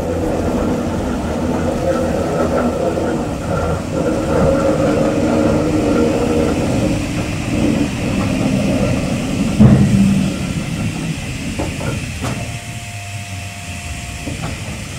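R. Stephenson & Co. steam locomotive of 1861 moving slowly, with steam hissing and the rumble of its wheels on the rails. There is a loud clank about ten seconds in, then a few lighter clicks.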